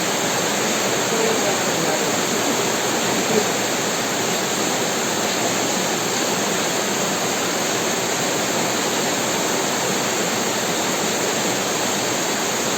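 Heavy rain falling steadily in an even hiss, with one small sharp tap about three and a half seconds in.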